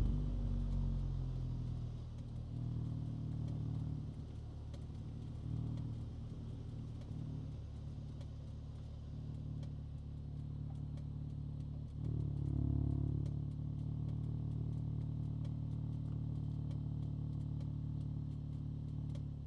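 2025 VW Golf GTI 8.5's turbocharged 2.0-litre four-cylinder running at low, steady revs just after the engine note falls away. The engine sound swells briefly about twelve seconds in, then settles again.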